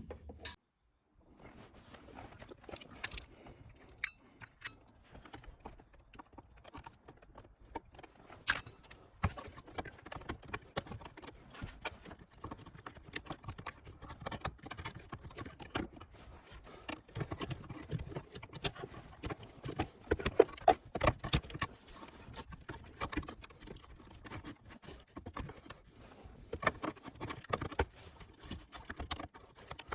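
Irregular clicks, knocks and small metallic rattles of hand tools loosening the bolt under the shifter, busiest about two-thirds of the way in.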